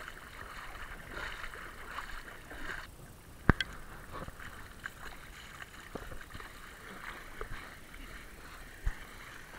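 Water splashing and sloshing as young Asian elephants wade through shallow lake water, with scattered light clicks and one sharp click about three and a half seconds in.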